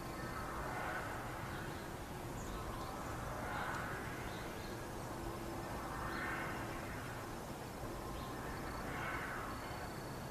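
A drawn-out swell of noise that rises and falls, repeating about every three seconds over a steady background hiss: one of the so-called strange sounds in the sky.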